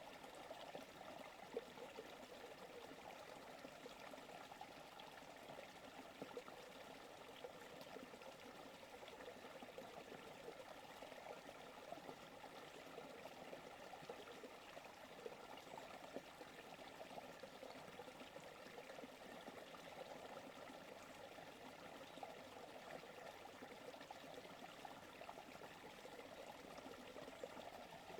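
Forest creek running: a faint, steady babble and trickle of flowing water, unchanging throughout.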